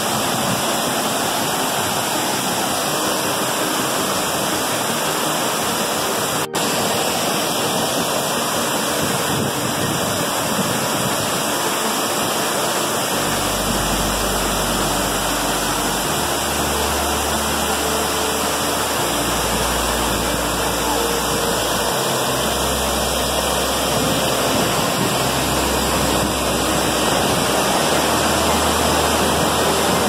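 Steady rushing of a waterfall, white water pouring and splashing over rocks.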